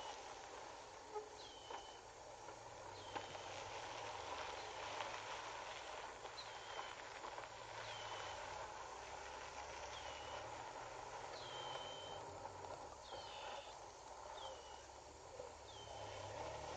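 A bird calling over and over, a short high note every second or two that drops sharply in pitch and holds for a moment, over a steady faint hiss and low hum.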